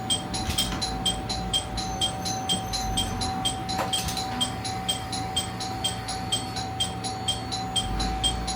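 A rapidly repeating high electronic beep, about three to four pulses a second, over a steady humming tone and a low rumble.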